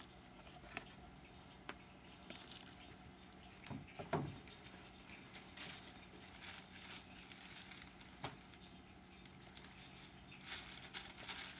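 A cat and a kitten play-fighting: soft scuffling, rustling and patting of paws, with a few light ticks and a short squeak about four seconds in.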